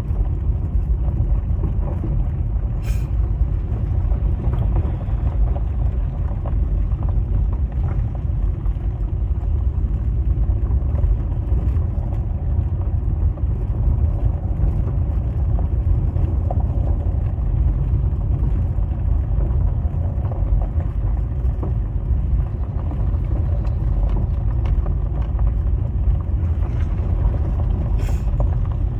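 Steady low rumble of a car heard from inside the cabin, the engine and road noise of the vehicle the dashcam rides in.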